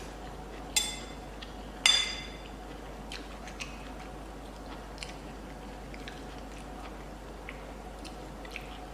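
Eating sounds: a utensil strikes a plate twice with a short ring, about one and two seconds in, then soft chewing and small clicks of cutlery.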